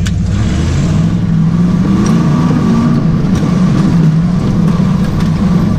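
Range Rover V8 engine of a competition 4x4 running under changing throttle, heard from inside the cab, its note rising and falling as it drives.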